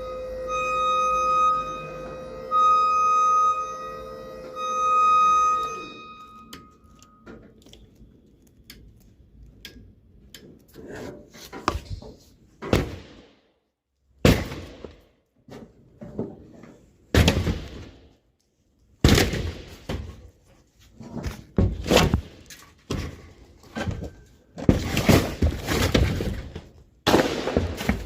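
A few seconds of background music with long held notes, then irregular knocks and thuds from interior demolition: drywall and framing being struck and pulled down. The impacts come louder and closer together in the last part.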